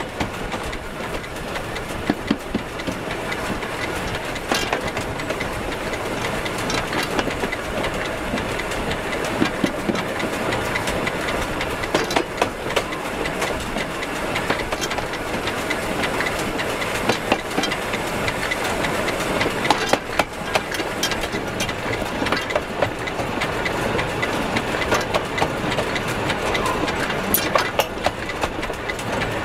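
Steam locomotive running along the track, its driving wheels and rods turning: a steady running rumble and rattle with frequent irregular sharp knocks and clacks from the wheels and running gear.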